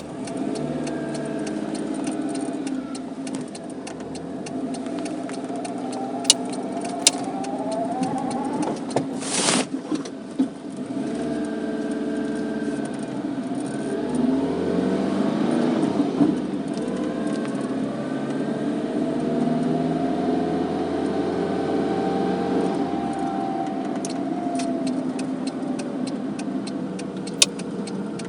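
Car engine heard from inside the cabin, pulling away and driving, its pitch rising and falling as it accelerates and changes gear, with a few sharp clicks.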